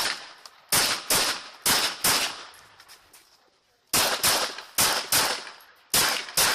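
A pistol firing rapidly, mostly in quick pairs of shots (double taps): two pairs in the first two seconds, a pause of nearly two seconds, then three more pairs, each report ringing out briefly.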